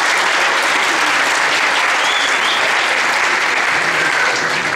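A crowd applauding steadily, easing off slightly near the end.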